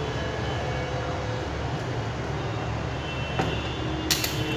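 Steady low background rumble, with a light knock about three and a half seconds in and a sharp click near the end as the rotary selector dial of a digital multimeter is turned.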